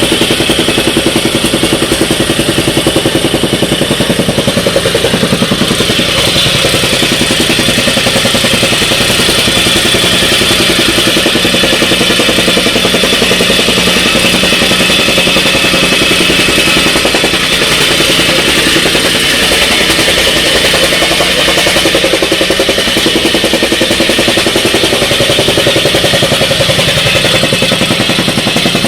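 Jumping-jack rammer compactor (a 'canguro' tamper) running, its engine and shoe pounding the ground in a rapid, steady rhythm.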